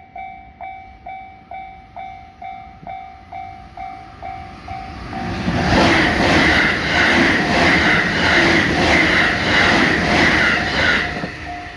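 Japanese level-crossing warning bell dinging about twice a second. About five seconds in a train passes at speed, its wheels clattering over the rail joints, and drowns the bell until near the end.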